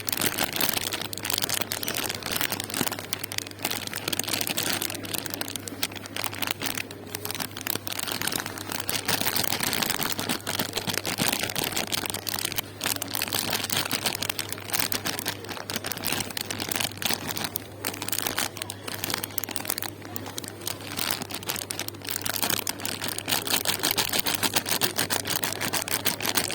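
Close-miked crinkling and crackling from handling marshmallow sweets, a dense run of rapid small clicks over a steady low hum.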